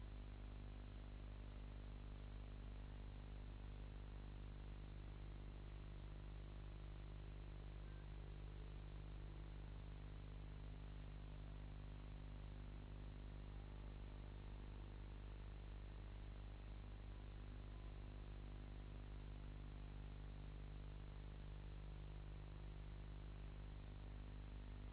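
Steady low electrical hum with a faint hiss and two thin, high, steady whines, unchanging throughout; no other sound on the track.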